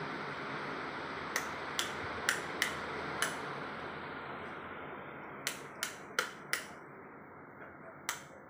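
Footsteps clicking on a glossy tile floor: a run of five sharp clicks, a pause, a run of four, then one more near the end, over a steady hiss that slowly fades.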